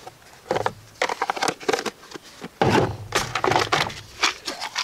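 Plastic containers and small tools knocking and rattling as they are handled: a string of irregular knocks and clatters.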